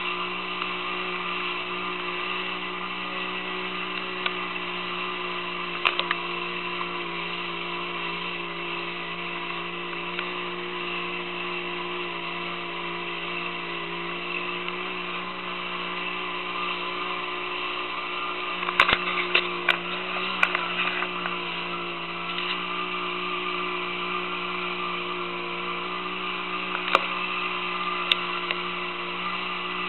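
Boat motor running at a steady pitch, heard from on board. A few sharp knocks cut through it: one about six seconds in, a cluster around twenty seconds, and two more near the end.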